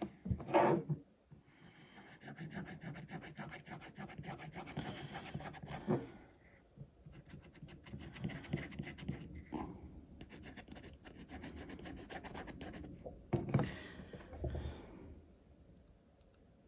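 Close scratchy rustling as a rhinestone-covered dog figure and a squeeze tube of glue are handled, with a few louder knocks near the start and again about three-quarters of the way through.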